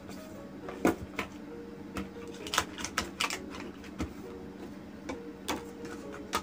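White cardboard phone box handled and closed on a desk: irregular light taps, scrapes and clicks of the cardboard, with the sharpest knock about a second in.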